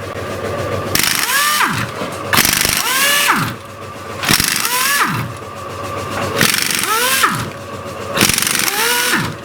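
A power tool run in short bursts several times, each burst spinning up and winding down so its whine rises and then falls, with a loud hiss over it.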